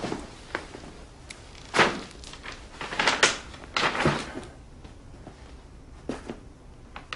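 Handling sounds from a large flat package being picked up and moved: several short brushing and knocking noises, a few seconds apart.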